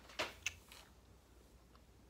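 A bite into a white-coating chocolate bunny with Oreo cookie pieces: a few short crunchy clicks in the first half second, then faint room noise.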